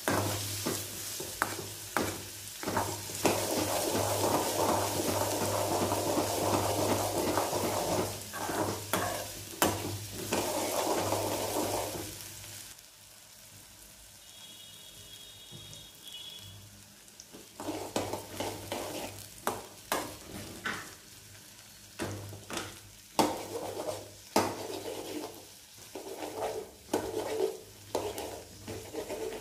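Metal spoon scraping and knocking against an aluminium kadai as raw papaya cubes and small onions stir-fry in sizzling oil. The stirring stops for a few seconds near the middle, then resumes with frequent sharp clinks against the pan.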